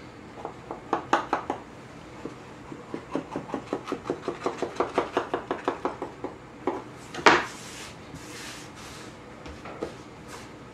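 Paring knife trimming pie pastry around the rim of a pie plate: a run of quick, even cutting strokes, about four a second, then a single sharper knock.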